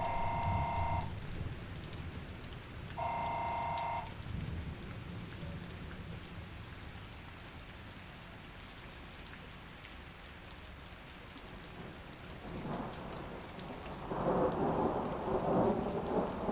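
Steady rain from a thunderstorm recording, with thunder rumbling up loudly over the last few seconds. Near the start, two electronic beeps about a second long, three seconds apart.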